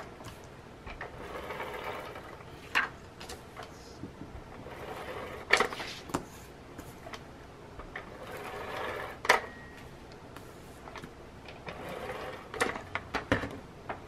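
A pink tape runner laying double-sided adhesive tape onto cardstock in several strokes, each lasting a second or two, with sharp clicks of the runner and cards being set down on the table between strokes.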